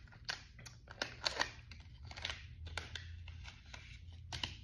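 Plastic wrappers and parts of a COVID rapid antigen test kit being handled and opened by hand: a run of irregular sharp clicks and short crinkling rustles.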